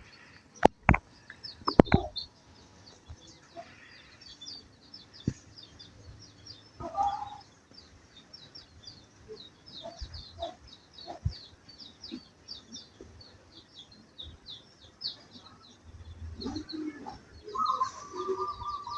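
Birds chirping in a steady rapid stream, with a few sharp clicks in the first two seconds and short pitched calls, one near the middle and a longer one near the end.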